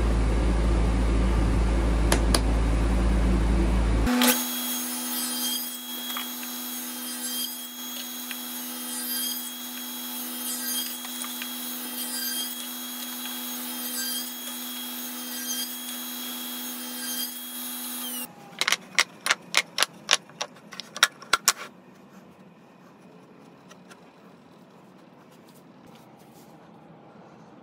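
Table saw running at a steady pitch while crosscutting walnut, held for about fourteen seconds. Before it comes a loud, steady, bass-heavy power-tool noise that cuts off abruptly about four seconds in. After the saw stops come about ten sharp knocks in quick succession.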